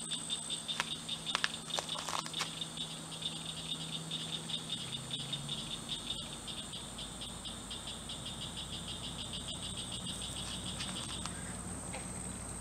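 A wild animal call from around the pond: a high, fast, evenly pulsing trill that stops about eleven seconds in, over a steady very high whine. A few light clicks sound in the first two or three seconds.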